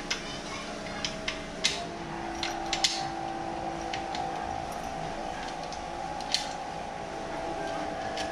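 Small metal clicks and clinks as bolts and steering-damper hardware are handled and fitted at a motorcycle's top triple clamp: a cluster of sharp taps in the first three seconds and one more near six seconds. A steady hum runs underneath.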